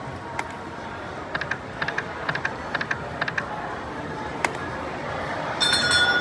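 Crazy Coin video slot machine spinning, with a run of short electronic ticks as the reels turn and stop. There is a steady casino-floor din throughout and a held electronic tone near the end.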